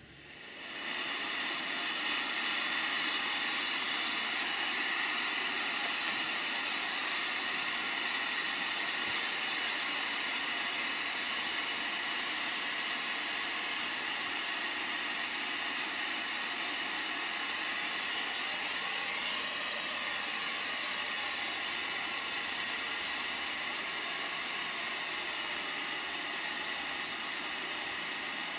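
Live steam model of a GWR 14xx tank locomotive letting steam escape from beneath the engine: a steady hiss that swells in over the first second or two and then holds without a beat.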